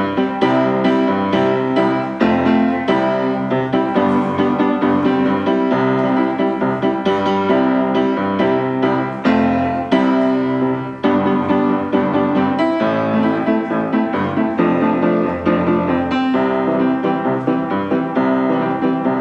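Piano music playing steadily, with many notes struck in quick succession.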